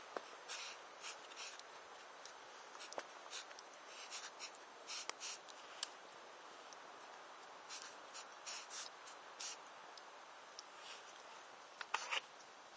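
Campfire crackling: irregular sharp pops and snaps, some louder than others, over a faint steady hiss.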